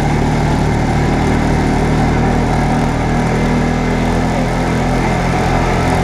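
Off-road vehicle engine running at a steady, unchanging pitch as the vehicle drives along a dirt trail.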